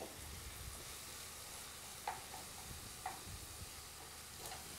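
Faint sizzling of a tomato-paste sauce frying in a pan as it is stirred with a wooden spatula, with a couple of light taps about two and three seconds in.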